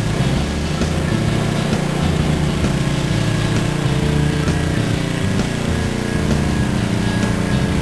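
Pressure washer's small gas engine running steadily, with the high-pressure water jet hissing against concrete.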